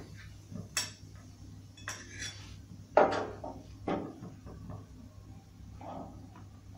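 Metal spoon clinking and scraping against a small steel tadka ladle while stirring chilli powder into oil, then set down on the steel counter. Several separate clinks, the loudest about three seconds in, over a faint low hum.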